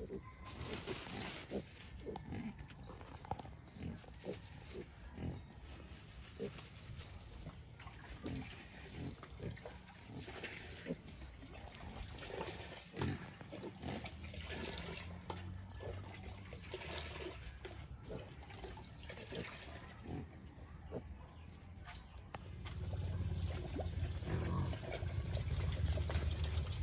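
Native black pigs grunting at intervals, against an evenly repeating high chirp about twice a second. About three-quarters of the way through, a louder low rumble comes in and stays.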